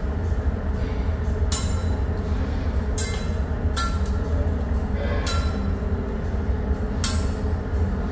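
A chef's cleaver and spatula clinking against each other and the steel teppanyaki griddle: about five sharp metallic strikes a second or two apart, some with a short ring. A steady low hum runs underneath.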